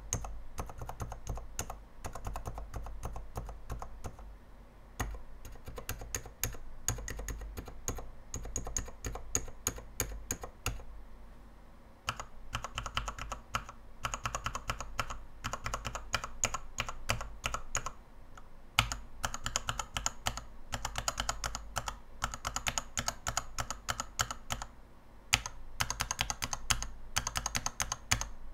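Mechanical keyboard switches on a KBDfans 72-switch tester being pressed in rapid runs: a dense clatter of key strokes on XDA keycaps over an acrylic base. There are short breaks a few times, and the strokes are brighter in the second half.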